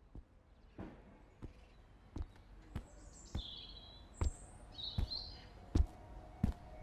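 Hard-soled dress shoes stepping on pavement, one step about every three-quarters of a second, growing louder as someone approaches. Birds chirp a few times in the middle.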